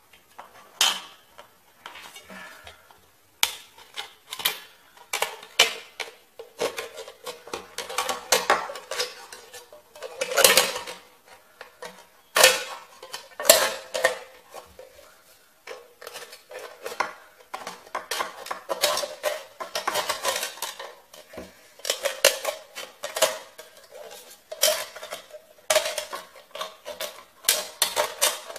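Scissors cutting around a thin aluminium soda can: an irregular run of sharp metallic snips and crinkles, with a few short pauses.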